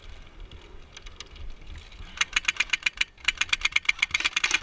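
M4-style airsoft rifle firing two rapid bursts of sharp clicks, about ten shots a second, starting about two seconds in.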